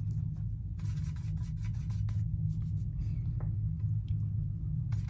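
Water brush scrubbing and dabbing in Sakura Koi watercolour pans: a run of faint, short, scratchy strokes about a second in and again near the end. A steady low hum runs underneath and is the loudest sound.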